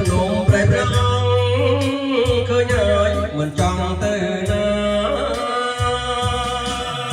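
Background music from a Khmer song: a melodic passage with no sung words, over a steady bass beat.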